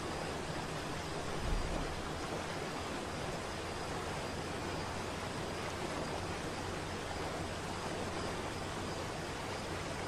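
Waterfall rushing: a steady, even roar of falling water, with a brief low rumble about a second and a half in.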